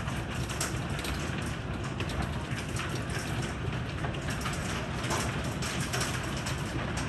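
Heavy rain mixed with hail: a steady downpour hiss with dense, irregular clicks of hailstones striking a wooden deck.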